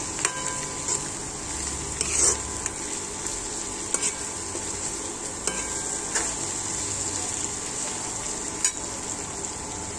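Metal spoon stirring egg bhurji in a metal wok over the heat, with a steady sizzle of frying. The spoon scrapes and clinks against the pan every second or two, loudest about two seconds in.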